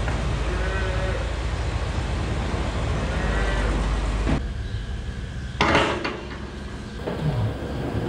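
Holstein dairy cows lowing a few short times over steady barn noise, with a sudden loud clatter about five and a half seconds in.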